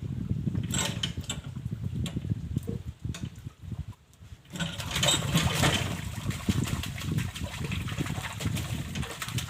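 Small engine running unevenly on massage oil in place of petrol, with an irregular low rumble. It nearly dies away about four seconds in, then picks up again louder.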